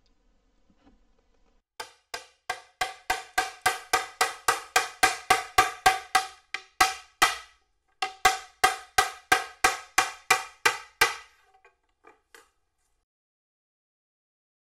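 A metal hammer strikes a wooden block to drive a hidden-dovetail top down onto a cabinet side, seating the joint. The taps are rapid and steady, about three to four a second, each with a bright ring. There is a short pause a little past halfway, and a few light taps close the run.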